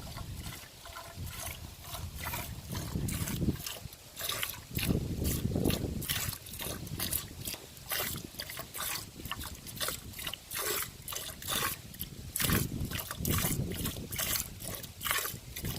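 Hand-milking a cow: short streams of milk squirting into a pail in a steady rhythm, about two squirts a second. A few low rumbling sounds come and go underneath.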